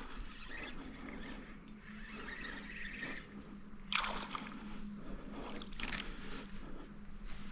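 Water splashing and sloshing as a hooked fish is fought in a shallow creek, with two louder splashes about four and six seconds in.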